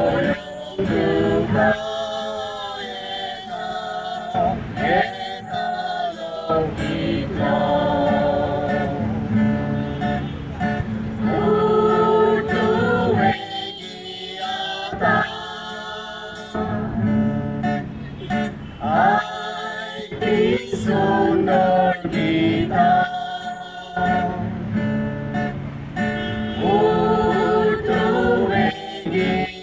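Voices singing a Christmas carol with acoustic guitar accompaniment.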